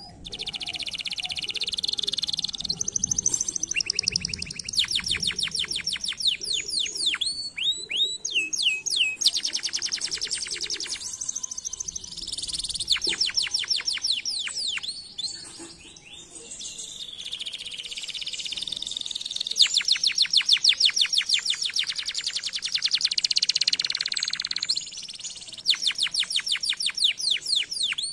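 Domestic canary singing: phrases of rapid trills and rolls of quickly repeated high notes, with short breaks between phrases.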